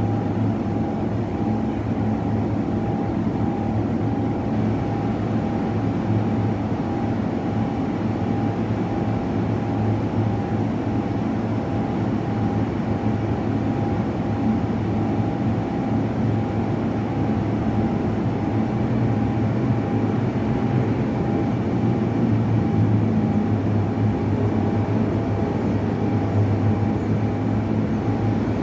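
A machine running steadily: a constant low drone with a steady higher-pitched hum over it, unchanging throughout.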